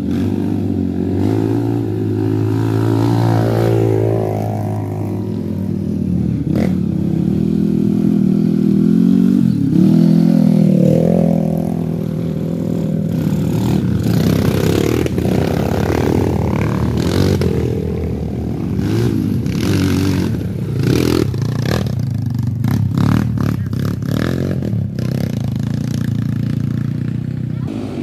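Several trail dirt bike engines running and revving as the bikes pass one after another on a muddy track, their pitch rising and falling with each throttle change. Sharp clattering knocks come through in the second half.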